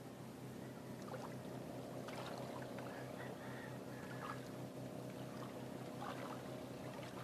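An engine running steadily, an even hum with a few faint knocks and splashes over it.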